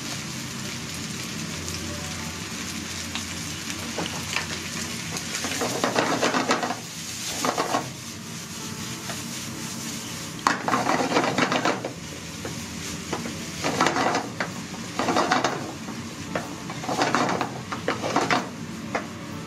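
Rice, chicken and ketchup sizzling in a nonstick frying pan while being quickly stir-fried and tossed with a wooden spatula: a steady sizzle, with louder bursts of stirring and tossing coming several times in the second half.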